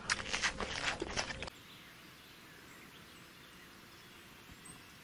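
About a second and a half of rough crackling noise that cuts off abruptly, followed by a steady outdoor background hiss.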